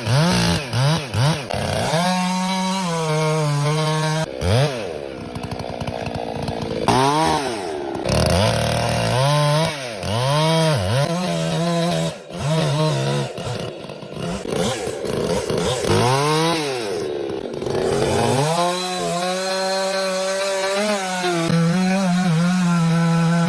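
Chainsaw engine revving up and down over and over as it cuts wood. Its pitch holds steady and high for a couple of seconds near the start and again through the last several seconds.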